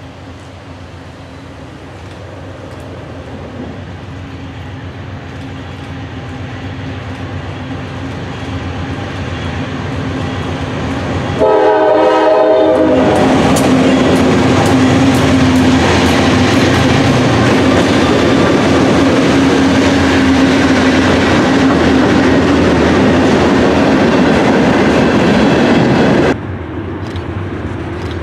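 GE B40-8 diesel freight locomotive approaching and growing steadily louder, then sounding a short blast on its multi-chime air horn about twelve seconds in. It then passes close, loud with the steady sound of its engine and the clatter of wheels on rail, until the sound drops sharply near the end.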